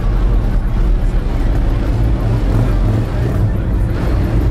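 Car engines running, a loud, steady low rumble.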